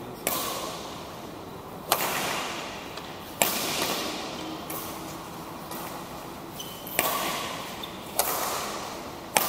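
Badminton rackets striking a shuttlecock in a rally: six sharp cracks one to two seconds apart, with a longer gap in the middle, each ringing on in a large echoing hall.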